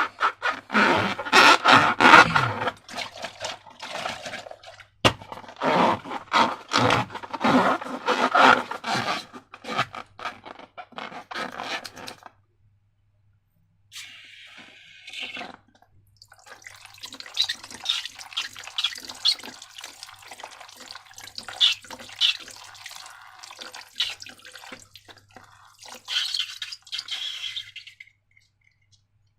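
Slime being squished and worked, a dense run of wet, sticky clicks and pops. It stops for about two seconds partway through, then goes on more softly.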